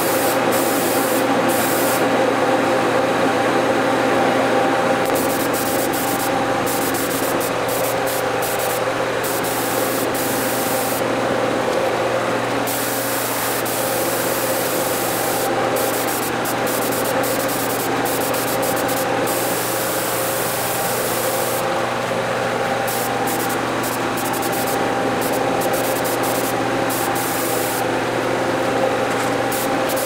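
Compressed-air touch-up spray gun hissing steadily as it sprays paint, over a steady mechanical hum.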